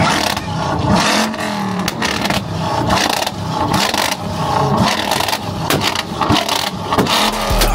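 Pickup truck engine revving hard while its exhaust pops and bangs in irregular sharp cracks, backfiring flames out of the tailpipe. Music comes in near the end.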